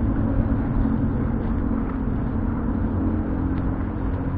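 Motorbike engine running steadily as it rides along, an even low hum with no change in pitch.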